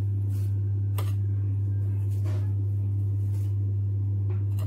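A steady low electrical hum, with a few faint light clicks about once a second from a spoon against the bowl and dish as cinnamon sugar is sprinkled over sliced apples.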